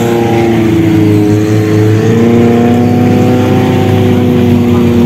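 Off-road vehicle engine running loudly and steadily, its pitch sagging slightly and then stepping up about two seconds in.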